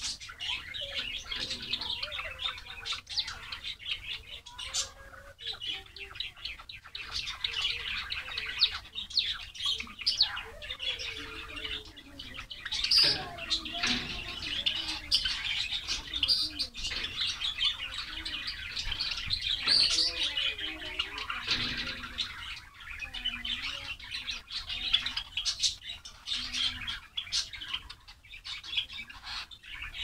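A flock of white Java sparrows chirping continuously, many short overlapping calls.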